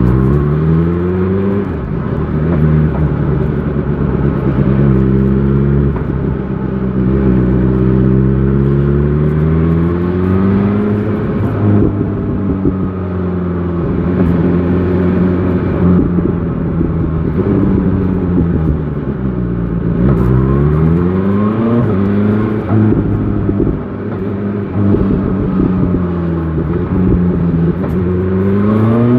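BMW S1000 XR motorcycle engine under way in city riding, its pitch climbing and falling repeatedly as it accelerates through the gears and eases off. About two-thirds of the way in it drops low as the bike slows, then climbs steeply again, with another sharp rise near the end.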